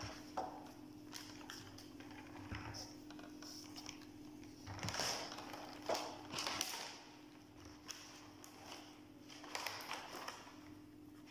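Thin clear plastic clamshell strawberry punnets being handled and opened: scattered light clicks and crackles of the plastic, over a steady low hum.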